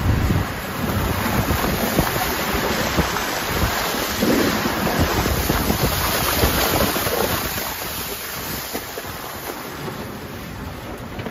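Pickup truck's snowplow blade pushing and scraping through wet slush, a steady rushing noise as the slush piles up and slides along the blade. The truck's engine hums low underneath at the start, and the rushing eases slightly near the end.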